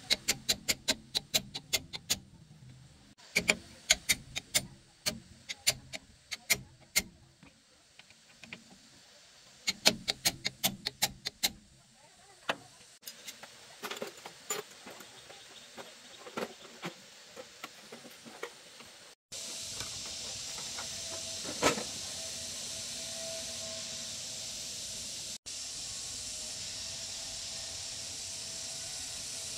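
A steel hammer striking metal at a truck's rear axle: runs of sharp metallic blows, several a second, in three bursts, then slower scattered knocks. About two-thirds of the way in the sound changes suddenly to a steady hiss.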